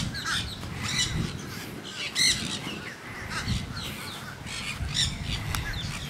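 A flock of nanday parakeets feeding on the ground, giving repeated high-pitched calls, one or two a second and sometimes overlapping.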